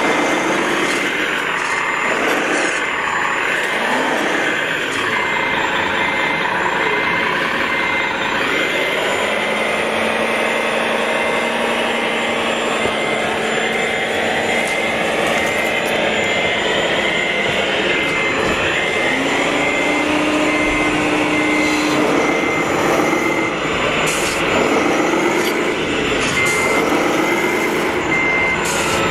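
Radio-controlled model truck sound modules playing a diesel engine that runs and revs, with a reversing beeper sounding steadily throughout. The beeper pauses briefly near the end, then starts again.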